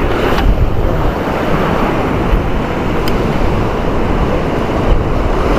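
Sea surf breaking and washing over shoreline rocks, mixed with wind buffeting the microphone.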